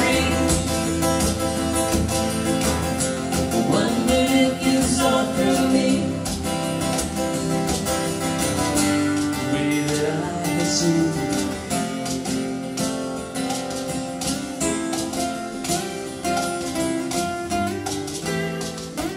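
Two acoustic guitars playing a folk-country song live, a steady strummed and picked accompaniment.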